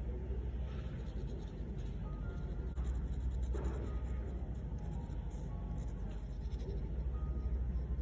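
Steel nib of a Lamy fountain pen scratching across textured watercolour paper in quick, irregular hatching strokes, over background music with a steady bass and a short-note melody.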